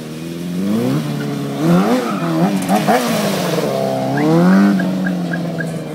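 Sport motorcycle engine revving during a stunt run: the pitch climbs, then the throttle is blipped up and down several times in quick succession in the middle, with one more rise near the end before it drops back toward idle.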